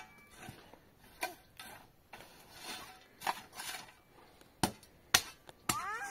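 A handful of irregular sharp knocks and clatters of hard objects, the loudest about five seconds in, followed near the end by a short rising squeal.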